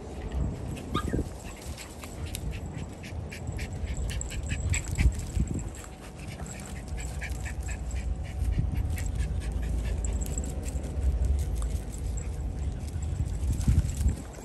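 Dogs moving about in a group, with a short rising whine about a second in and many small clicks over a steady low rumble.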